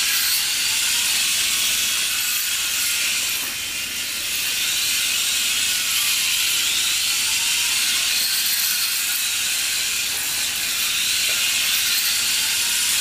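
A mini electric RC motorbike's gyro flywheel and drive motor whirring steadily and noisily, the motor's pitch rising and falling several times as the bike speeds up and slows.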